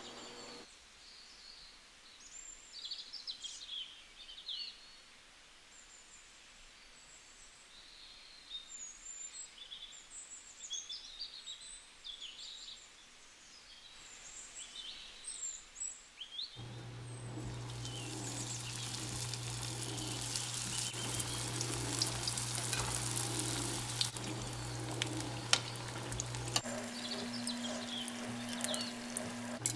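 Small birds chirping in short, high calls through the first half. About halfway through, samosas start deep-frying in hot oil in a pan: a steady sizzle with crackles and pops over a low hum, and the sizzle is the loudest sound.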